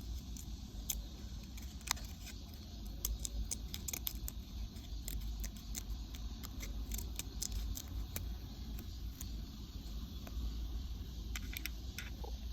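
Small sharp metallic clicks and taps from miniature tools being handled, scattered irregularly and busiest in the middle and near the end, over a steady low hum.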